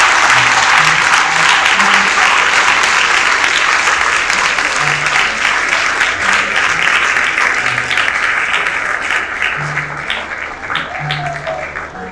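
An audience applauding, fading and thinning to scattered claps near the end, over background music.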